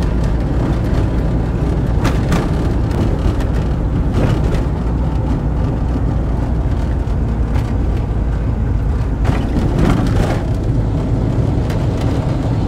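Volkswagen T3 van driving, with steady engine and road rumble and a few short knocks and rattles.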